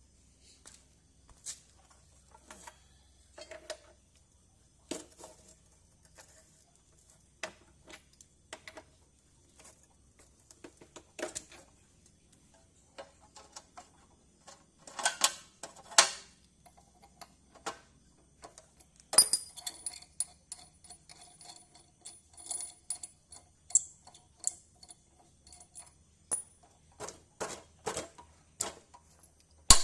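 Irregular metal clinks, taps and knocks, as of steel tools or pieces being handled and set down, with louder knocks about halfway through.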